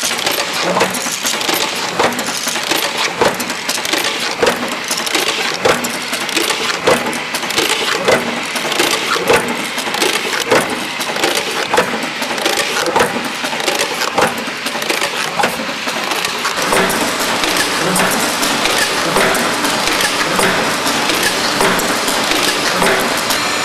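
Wood-strip gluing press line running: a dense mechanical clatter with sharp clacks and knocks, roughly one a second, as strips feed through the rollers and pneumatic units. The clacks thin out after about 16 s, leaving a steadier machine running noise.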